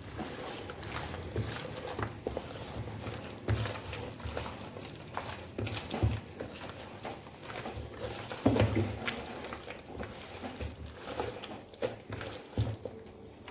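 Raw chicken pieces being mixed through a thick marinade of beaten egg, cornflour, maida and spices in a bowl: irregular wet mixing sounds with small knocks.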